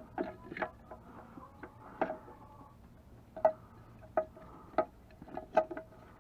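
Irregular metallic clicks and clinks, about ten, some with a brief ringing tone, as metal parts or tools are handled.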